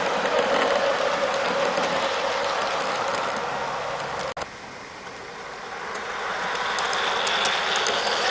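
A train rolling along the rails, a steady rumbling rush with wheel noise. About four seconds in it cuts off abruptly, then comes back quieter and builds up again, with light clicking near the end.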